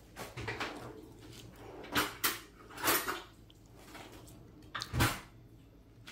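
Kitchen handling noise: a few sharp clicks and knocks of things being set down and moved on the counter, the loudest a dull thud about five seconds in.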